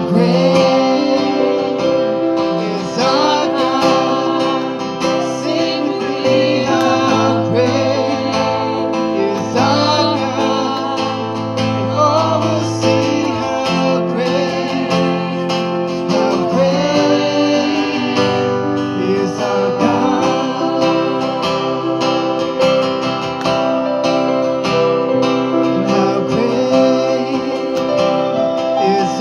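Live worship band playing through a PA system: strummed acoustic guitar and electric guitar, with women singing.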